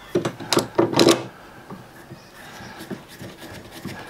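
A screw-type bar clamp being fitted over a wooden straightedge and tightened by its handle. It starts with a quick run of sharp metal-and-wood clicks and knocks, then quieter ticks and rubbing as the screw is turned down.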